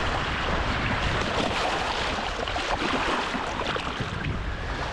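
Small surf waves washing and splashing in ankle-deep water at the shoreline, a steady rushing noise with a few short splashes, along with wind buffeting the microphone.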